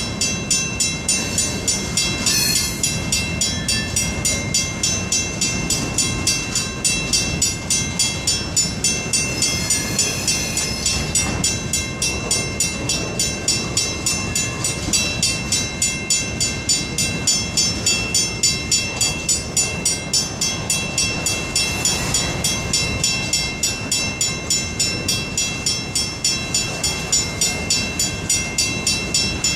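Freight cars of a Portland and Western Railroad train rolling past, their wheels clicking over the rail joints in a steady rhythm of about three beats a second, with a thin steady high tone over it.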